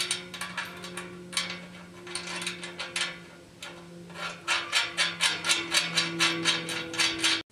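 Ratchet wrench clicking as it tightens a nut onto a carriage bolt: scattered clicks at first, then a quick even run of about five clicks a second over the last few seconds.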